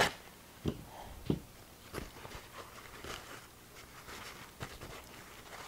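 Table-top handling sounds: a sharp knock right at the start as a roll of plastic wrap is set down, then a few soft thumps and faint rustling of plastic wrap and paper towel as hands move the wrapped hams.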